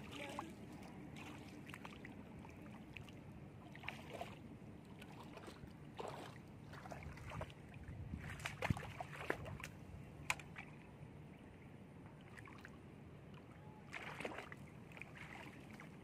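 Feet wading through shallow floodwater among grass. Water splashes at irregular intervals with each step, over a low steady background.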